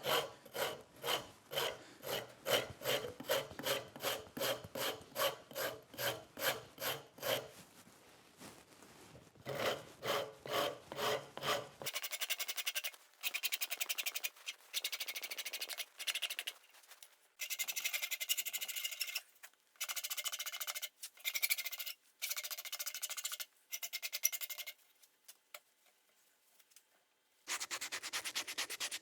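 Wood rasp scraping a hickory hammer handle in steady back-and-forth strokes, about two a second, taking wood off to fit the handle into the hammer head's eye. From about halfway there is a finer, higher scraping in several long passes with short pauses: sanding the handle.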